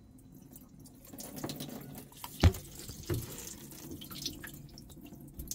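Water dripping and trickling out of an open spark-plug hole on a boat's inboard engine and into the bilge: water has got into the cylinder, which the owner takes as a sign the motor is probably shot. A single sharp knock comes about two and a half seconds in.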